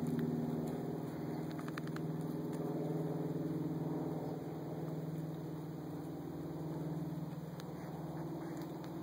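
A steady low hum, with a few faint clicks about a second and a half to two seconds in.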